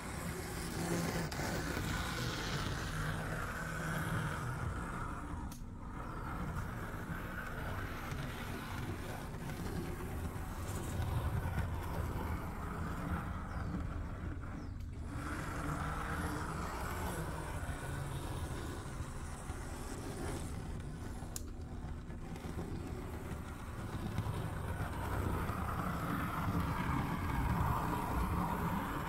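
Märklin Z-scale 0-6-0 steam tank locomotive model running on its track, a steady whir of its small electric motor and gears. It grows louder as the locomotive comes close and fades as it runs to the far side of the loop.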